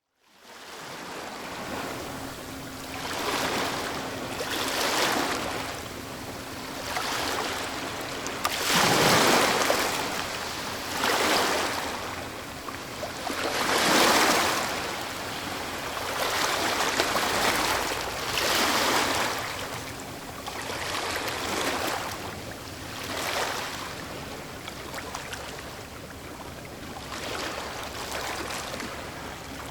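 Ocean waves breaking one after another, each a surge of rushing, hissing water, with the biggest crashes about nine and fourteen seconds in.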